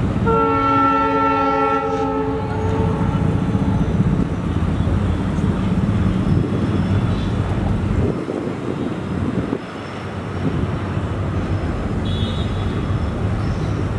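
WDP4 diesel locomotive's horn sounding once just after the start, a chord of several tones about two seconds long, over the steady low rumble of its EMD 710 two-stroke diesel engine as it hauls the train.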